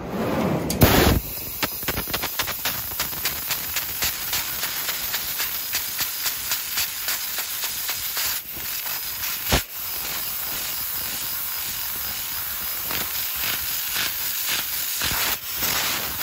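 Fiber laser cutting sheet steel: a steady hiss with a fast run of sharp crackling ticks.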